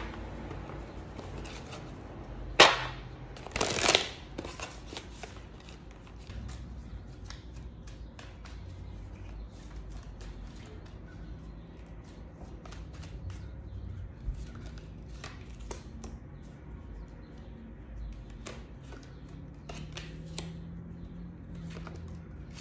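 A deck of tarot cards being shuffled by hand: a long run of short, soft taps and flicks as the cards slide and drop into the deck, with two louder bursts about three to four seconds in.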